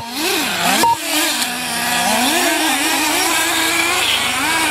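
Several nitro RC buggies' small glow-fuel engines running at once, their pitch rising and falling as they rev up and down around the track. The sound cuts out sharply for a moment twice, at the start and about a second in.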